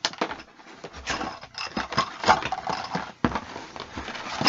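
Rummaging through a subscription box and its packaging: an irregular run of rustles, crinkles and small knocks as items are handled and pulled out.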